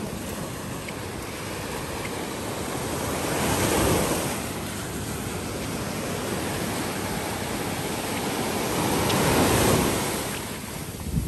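Small sea waves breaking and washing up a sandy beach, the surf swelling loudest about four seconds in and again near the end.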